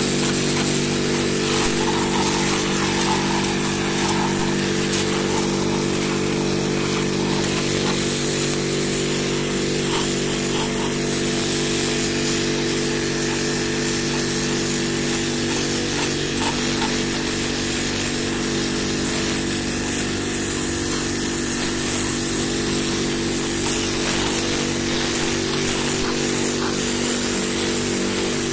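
Pressure washer running steadily: a constant motor hum under the hiss of the high-pressure water jet spraying across clay roof tiles.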